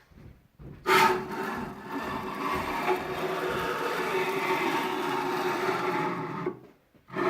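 Axis ball screw of a 6040 CNC router, turned by hand without stepper motors, grinding harshly, with a steady hum under the rasp. It starts about a second in and stops shortly before the end. The uploader takes the noise for failed screw bearings on the axes.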